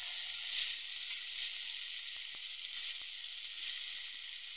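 Kala chana (black chickpeas) with onion and tomato sizzling steadily in oil in a frying pan, the water cooked off so the mix is frying dry. A few faint taps of the steel spatula come a little past halfway.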